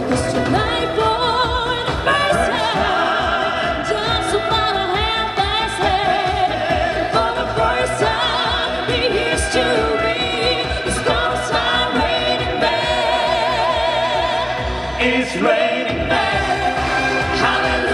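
Live music: several singers in a full, musical-theatre style with vibrato, a violin playing, and a steady beat underneath.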